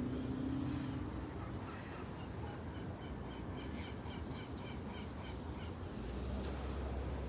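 A rapid series of short, high animal calls, about four a second, lasting a few seconds, over a low steady rumble that grows stronger near the end.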